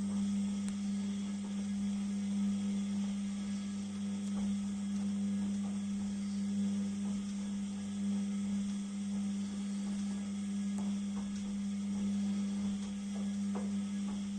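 Beko 6 kg washing machine running with a steady low hum and a few faint ticks.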